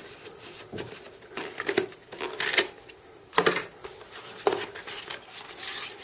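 A cardboard phone box being handled as its inner tray is lifted out: a string of short scrapes, taps and rustles of cardboard and paper.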